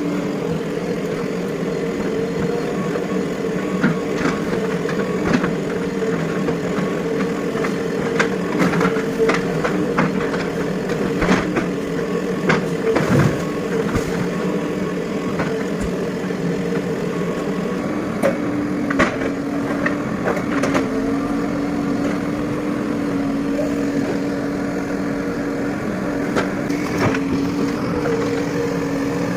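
JCB 3DX backhoe loader's diesel engine running steadily under work, with many sharp knocks and cracks scattered through it as the machine breaks up the old building.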